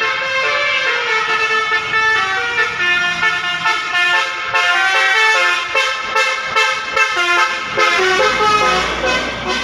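A bus's Basuri telolet musical horn playing a tune, its pitch stepping from note to note every fraction of a second. A low engine rumble comes in near the end.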